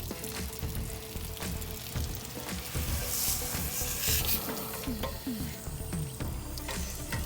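Water hissing and splashing as a tank-rinser wand sprays inside an RV water heater tank and the flush water pours out of the drain opening, flushing out sediment. The hiss grows louder about three seconds in.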